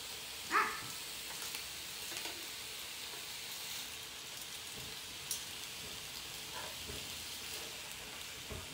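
Bacon sizzling on a hot electric contact grill, a steady hiss, with a few light clicks from metal tongs and one brief louder sound about half a second in.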